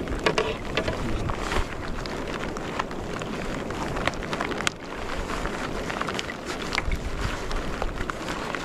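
Wind buffeting the microphone at sea, over a steady wash of choppy water, with small irregular splashes and knocks of water against the kayak hull.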